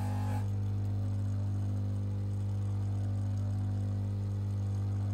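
Bench polishing motor running with a steady low hum, its buffing wheel spinning. In the first half second the watch case is pressed to the wheel for a light buff to take off surface scratches, a brief hiss that stops.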